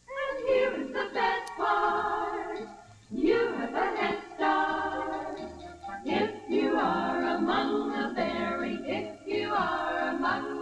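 Women's chorus singing together in phrases with short breaks, coming in after a brief silence.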